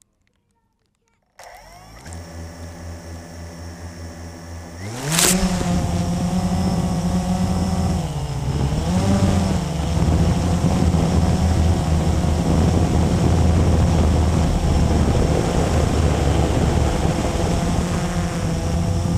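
Blade 350QX quadcopter's electric motors and propellers: they start about a second and a half in with a low idle whir, spool up steeply around five seconds in as it lifts off, then hold a loud steady hovering drone with a brief dip and rise in pitch near eight seconds.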